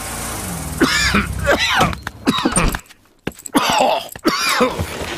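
A male cartoon voice of an ill bear groaning and coughing in two bouts, the noises of someone sick with a bad cough.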